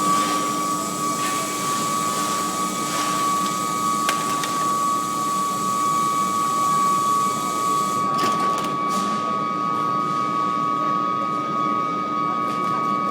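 Coreless induction melting furnace running with a steady high-pitched whine over a hiss of plant noise, with a few short clicks about four and eight seconds in.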